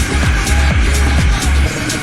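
Electronic dance music with a steady beat of deep kick drums and hi-hats over heavy bass; the bass drops out near the end.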